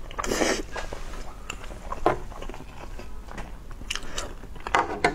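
Close-miked eating of luosifen rice noodles in broth: slurping and chewing in short bursts, the longest near the start, a sharp one about two seconds in and another just before the end.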